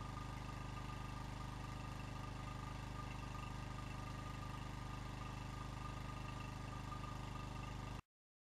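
A small engine running steadily at idle, with a steady high whine over it; the sound cuts off suddenly about eight seconds in.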